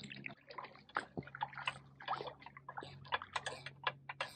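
Water splashing and sloshing irregularly as bare feet kick in the water beside an inflatable pool float.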